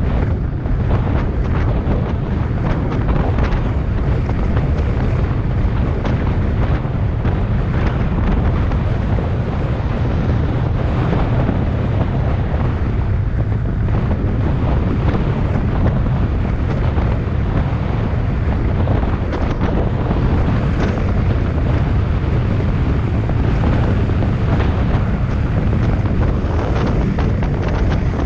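Heavy wind buffeting on a bike-mounted camera's microphone during a fast downhill ride: a loud, steady low rumble with constant crackle.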